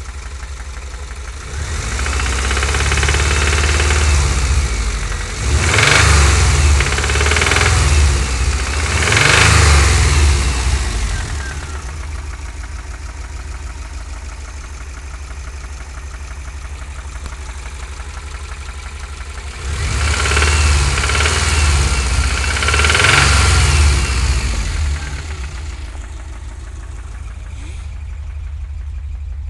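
2000 Subaru Impreza 2.5RS's 2.5-litre flat-four engine idling, then revved up twice, each time held up for several seconds with a couple of sharper blips before dropping back to idle. It carries a knock that the owner takes for either rod knock or piston slap.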